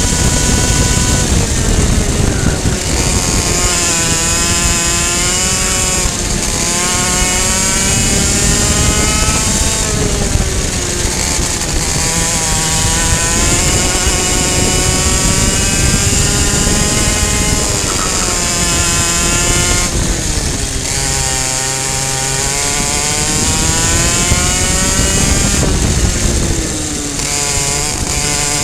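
Two-stroke racing kart engine at high revs, its pitch dropping as the throttle is lifted for corners and climbing again on the straights, several times over.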